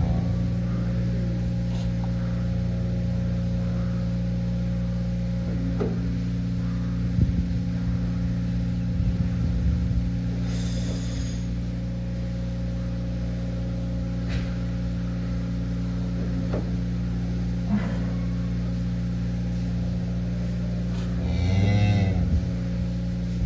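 A cow mooing once, a low call of about a second near the end, over a steady low mechanical hum.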